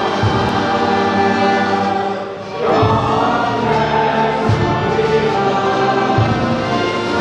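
Background music: a choir singing long held chords over instrumental accompaniment, dipping briefly about two and a half seconds in and then swelling again.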